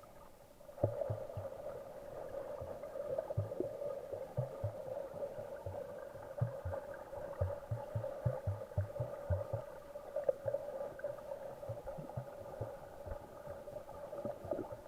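Muffled underwater sound picked up by a snorkeler's camera: a steady hum with irregular low thumps of water moving against the camera. It starts about a second in.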